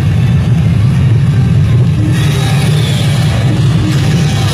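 Flame cannons of a water show firing with a rushing hiss, starting about two seconds in and again near the end, over a loud, steady low rumble.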